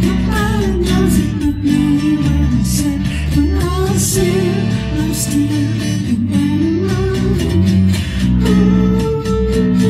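A man singing with his own strummed acoustic-electric guitar accompaniment, holding one long note near the end.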